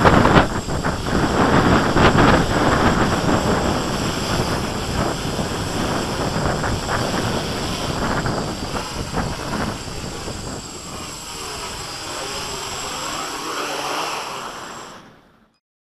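Strong wind buffeting the microphone in gusts over the buzz of a Q450 quadcopter's propellers in flight. The wind eases in the last few seconds, leaving a quieter sound with a faint wavering pitch, then the sound cuts off.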